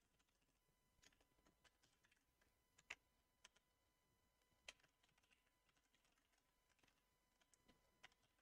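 Faint computer keyboard typing: scattered, irregular keystrokes, the loudest about three seconds and about five seconds in.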